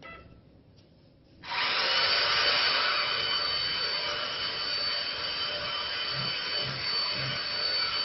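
CNC wood lathe's electric router spindle switching on from the handheld controller about a second and a half in, then running at speed with a steady high whine. Three soft low knocks near the end.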